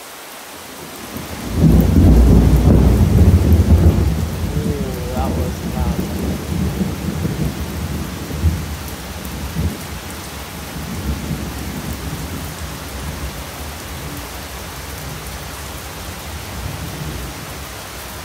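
Thunder after a nearby lightning strike: a loud low crack-and-rumble starts about a second and a half in, is loudest for the next couple of seconds, then rolls on and slowly dies away. Heavy rain pours steadily throughout.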